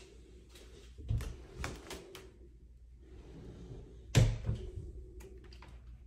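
A panelled interior door being worked by its brass lever handle: a sharp knock of the latch and door about four seconds in, the loudest sound, with softer knocks and clicks before and after it.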